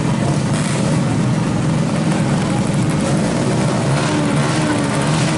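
Motorcycle engine running, its pitch wavering slightly, over a steady hiss of background noise.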